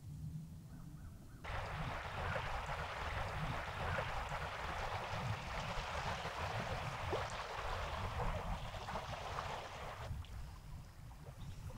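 Water washing against a rocky lakeshore: a steady hiss that starts suddenly about a second and a half in and cuts off about ten seconds in, over a low rumble of wind on the microphone.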